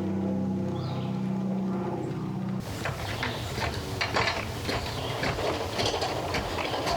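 A steady motor drone that stops suddenly about two and a half seconds in, followed by a run of sharp clicks and light metallic clatter, like thin metal being handled.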